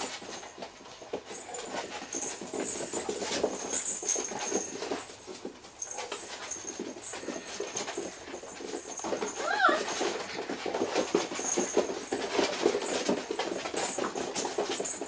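A litter of five-week-old puppies play-fighting: paws scrabbling and sliding on vinyl flooring, with scuffling throughout. One short whine rises and falls about nine and a half seconds in.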